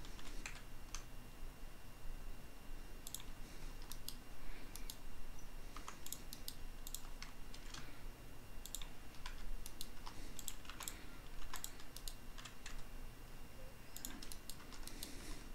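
Computer keyboard keystrokes and mouse clicks, irregular and scattered, some in quick little runs, over a faint steady low hum.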